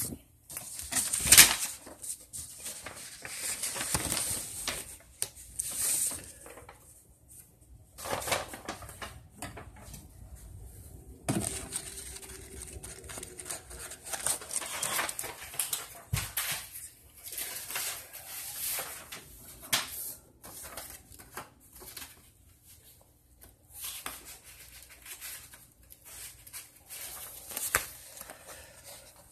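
Scattered rustling, clicks and knocks of objects being handled and moved about in a small room, with short quiet gaps between.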